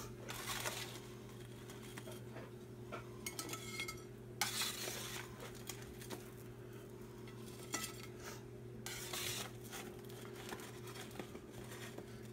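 Metal spatula scraping across a metal baking sheet as baked fries with melted cheese are scooped up, in several separate scrapes with some clinks; the loudest comes about four and a half seconds in. A steady low hum runs underneath.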